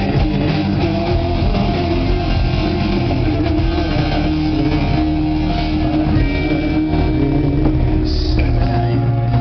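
Rock band playing live through a large outdoor PA, led by electric guitar, heard from within the crowd.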